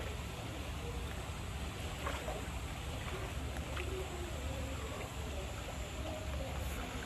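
Steady outdoor ambience of water moving in a sea lion pool, under a low steady rumble, with faint distant voices now and then; no calls from the sea lions.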